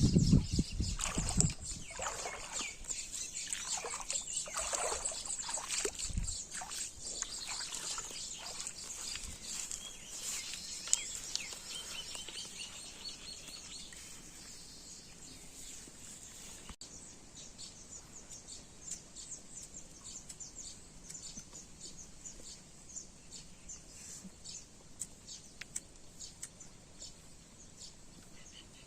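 Outdoor ambience with birds chirping and many short high ticks. A low rumble stops in the first couple of seconds, and the sound grows fainter toward the end.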